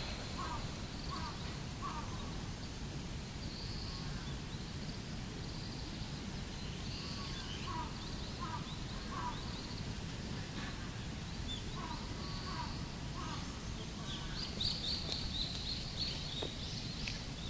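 Outdoor ambience: a steady low background rumble with birds calling, short chirps every second or so and brief higher trills, busiest near the end.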